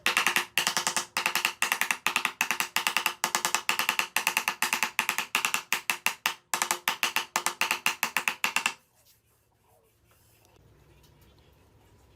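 Hand saw cutting wood in quick, even back-and-forth strokes, about four or five a second, which stop suddenly about nine seconds in.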